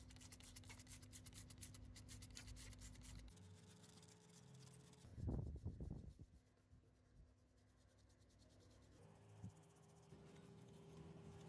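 Faint scratchy scrubbing of a toothbrush's bristles on a soapy die-cast model car body, in quick rapid strokes, with one brief low thump of handling about halfway through.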